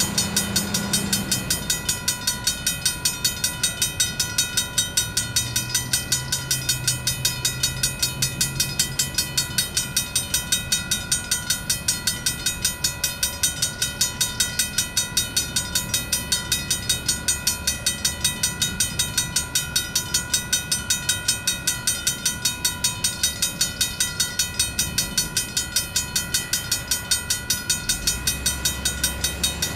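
Railroad crossing bell ringing steadily with rapid, evenly spaced strikes while the crossing signals are active. A low engine drone runs underneath and is briefly louder about a fifth of the way in.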